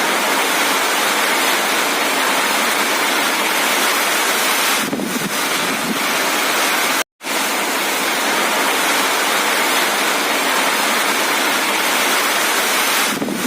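Heavy cyclone rain pouring steadily with gusting wind, a loud, dense hiss. It cuts out for an instant about seven seconds in, then carries on.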